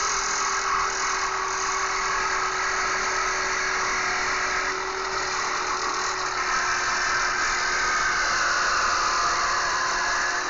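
Handheld power saw running steadily under load, cutting through a metal hurricane bracket fixed to a wooden deck board.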